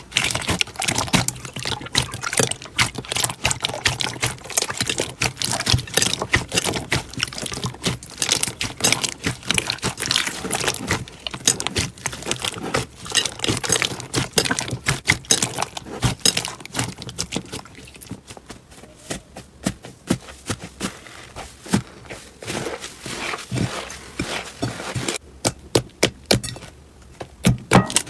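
Slime being squished and stretched by hand, making a dense run of wet clicks and pops, with quieter patches in the second half.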